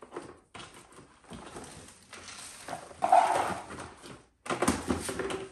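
Hard plastic parts of a portable bucket toilet being handled and pushed together: the white inner bucket scraping and knocking against the gray plastic frame in irregular bursts, louder about three seconds in and again near the end.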